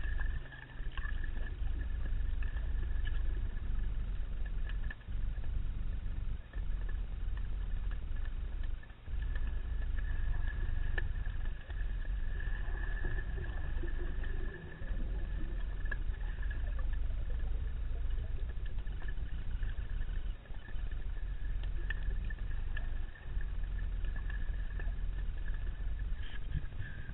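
Underwater sound: a steady low rumble of moving water, with a thin steady high tone running over it and a few brief dips in level.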